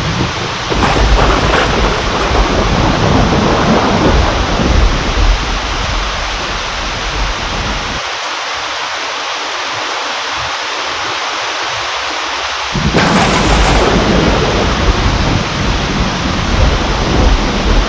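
Steady heavy rain with thunder rumbling low underneath. The rumble dies away a little under halfway through, leaving only rain, then a fresh thunderclap breaks in about two-thirds of the way through and rolls on.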